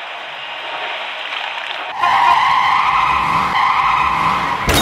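Cartoon sound effects for a toy excavator: a vehicle noise building for about two seconds, then a sudden, louder steady skid-like screech as it races off, ending in a sharp crack just before the end.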